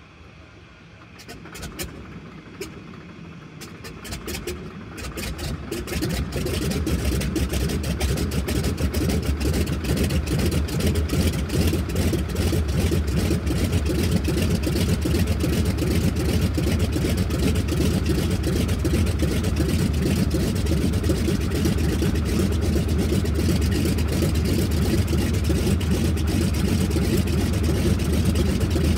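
Spartan Executive's Pratt & Whitney R-985 nine-cylinder radial engine starting: a few seconds of scattered pops as it turns over, catching about five seconds in, then settling into a loud, steady run with an even beat of firing pulses.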